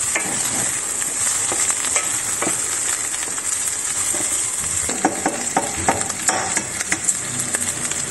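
Chopped Cypriot wine sausages and sliced garlic sizzling steadily in a stainless steel frying pan, stirred with a wooden spatula that scrapes and knocks against the pan, the knocks coming thicker after about five seconds.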